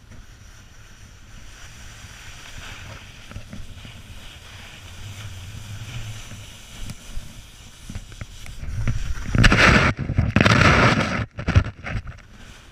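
Snowboard sliding on packed snow with wind rushing over the helmet camera's microphone. About nine seconds in, a loud scraping rush as the rider falls and slides through the snow, with a few knocks near the end.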